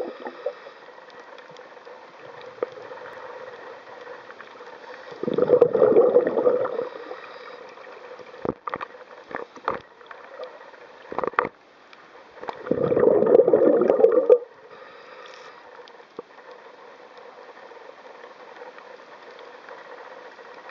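Underwater sound: two bursts of bubbling a second or two long, about five and twelve seconds in, typical of a scuba diver's exhaled air bubbles. Scattered clicks and knocks between them.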